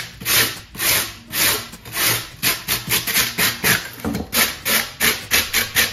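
Hand wire brush scraping back and forth across carved foam board, lightly roughening the rock texture. The rasping strokes come about twice a second at first, then faster from about halfway.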